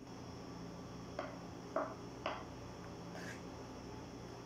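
Four light clicks, spaced irregularly over about two seconds, over a faint steady low hum.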